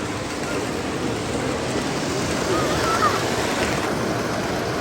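Steady crowd chatter in a large exhibition hall, many distant voices blending into an even hiss.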